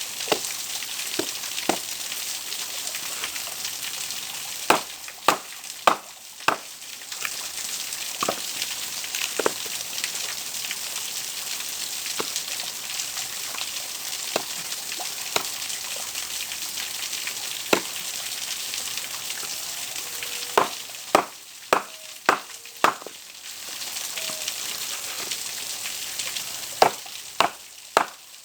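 Steady rushing of running water from a stream or spring, with clusters of sharp knocks, three to five at a time, like wet branches being chopped for firewood.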